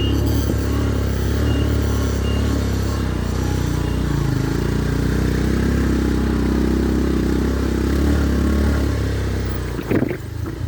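Motorcycle engine running with a steady low drone while riding; a short, sharp clatter comes near the end.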